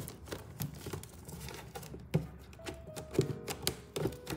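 A quick, irregular run of light taps and clicks, about three a second, from hands working a cardboard mailing box, over soft background music.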